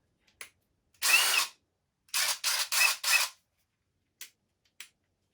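DeWalt drill's motor run in short trigger pulls: one burst of about half a second, then four quick blips in a row, with light clicks of handling between. The bit stuck in the chuck won't come out.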